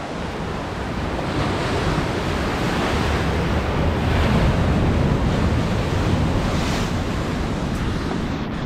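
Ocean surf breaking and washing over a rocky shore, one surge swelling to its loudest about halfway through and easing off, with wind rumbling on the microphone.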